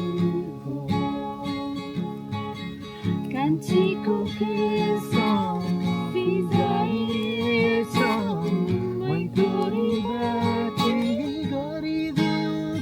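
Acoustic guitar music: chords under a wavering, gliding melody line.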